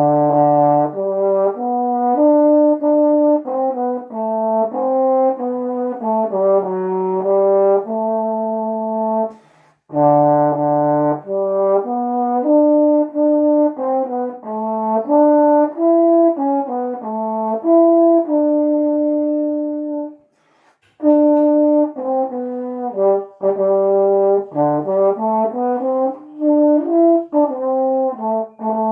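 Solo trombone playing a hymn melody, one note at a time, in three phrases separated by short gaps about a third and two-thirds of the way through.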